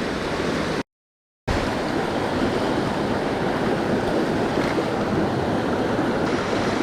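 Mountain stream running high after rain: a steady rush of water, cut to total silence for about half a second about a second in.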